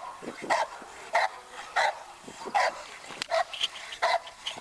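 Dog barking in a steady rhythm, about three barks every two seconds, each a short, loud bark: the repeated barking of a dog worked up against a protection-work helper.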